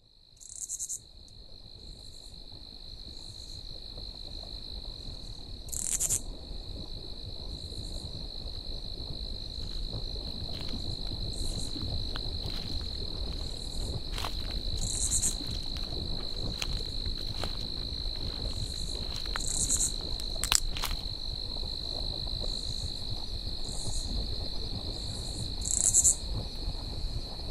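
Night-time insect chorus: a steady high-pitched trill with short, louder chirping calls every few seconds over a low rumble, fading in over the first couple of seconds.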